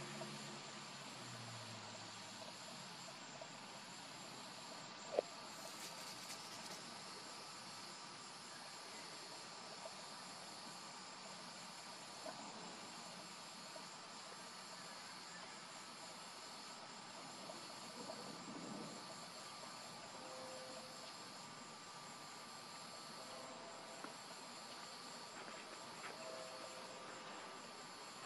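Steady insect chorus with continuous high, faintly pulsing trills. A single sharp click sounds about five seconds in, and a low hum fades out in the first couple of seconds.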